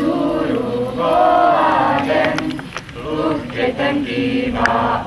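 A group of children singing together in unison, with long held notes.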